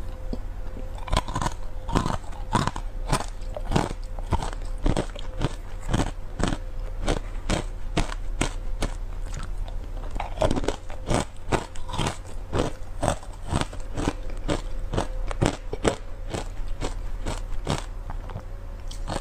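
Hard ice cubes coated in matcha powder being bitten and chewed close to a clip-on microphone: a steady run of sharp, crackling crunches, about two or three a second.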